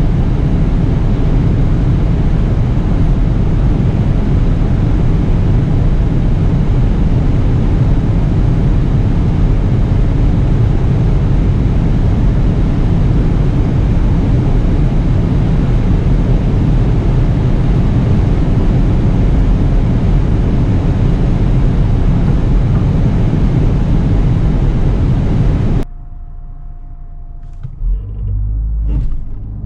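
Loud, steady drone of wind, tyres and drivetrain inside a Peugeot 508 SW plug-in hybrid held near its top speed, about 225–237 km/h. About 26 s in, the sound cuts off abruptly to a much quieter car at a standstill. Near the end a rising engine note begins as it pulls away.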